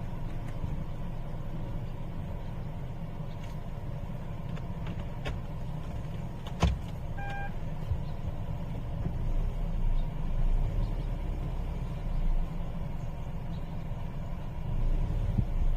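Steady engine and road rumble inside a moving Kia Ray's cabin. About six and a half seconds in there is a click, followed by one short electronic beep: the Carvis aftermarket blind-spot warning sounding.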